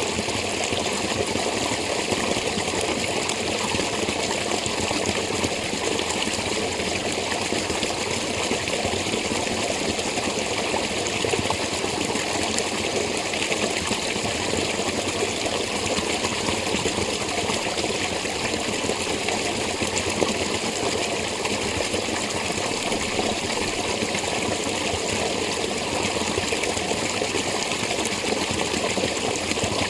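Spring water running and splashing steadily.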